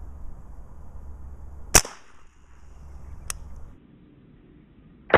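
A Sam Yang Dragon Claw .50 pre-charged pneumatic big-bore air rifle firing once, a sharp loud crack with a brief hiss trailing it. A fainter sharp crack follows about a second and a half later, and another loud crack begins at the very end.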